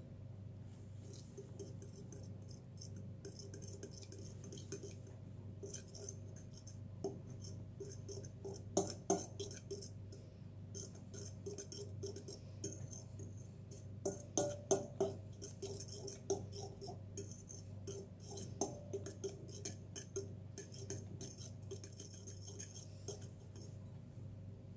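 Metal spoon quickly clinking and scraping against the sides of a glazed bowl while beating a runny egg-and-milk batter, with louder flurries of clinks about nine seconds in and again around fourteen to fifteen seconds.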